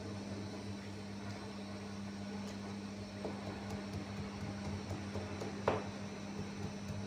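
A low, steady machine hum with soft scraping and tapping as a plastic scraper works over raw Barbari dough on a floured bench; a sharper tap comes near the end.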